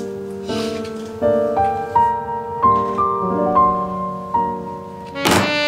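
Soft background piano music: a slow melody of single notes over held chords. A louder swell comes in near the end.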